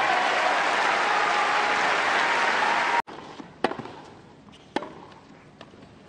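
Tennis crowd applauding, cut off abruptly about halfway through. Then a rally: three sharp racket strikes on the ball about a second apart.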